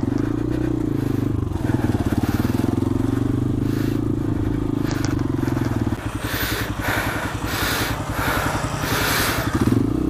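Single-cylinder 150 cc motorcycle engine running at low speed, its note steady and then dropping to a lower, uneven pulse about six seconds in. From then on, repeated crunching and scraping of the tyres over rocky ground.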